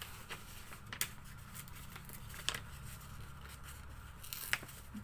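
Brown paper envelope being picked and torn open slowly by hand: scattered sharp paper crackles and small rips, a few seconds apart, over a steady low hum.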